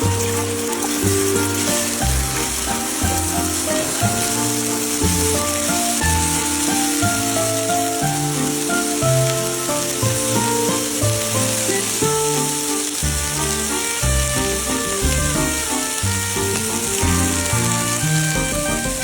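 Fried rice sizzling in a hot pan, a steady hiss, under background music with a regular bass beat.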